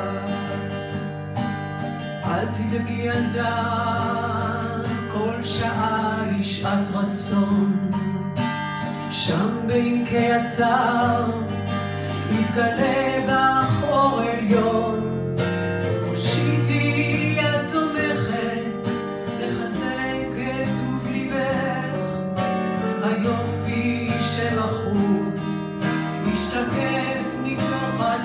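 Live acoustic music in an instrumental passage: guitar strumming under a melodic lead line, with no words sung.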